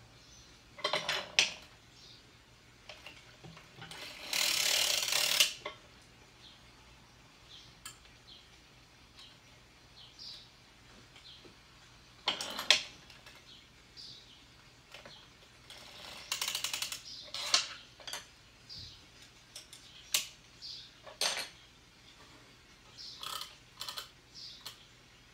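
Circular sock machine worked by hand: intermittent metallic clicks and rattles from the needles and cam, with a longer run of clatter about four to five seconds in.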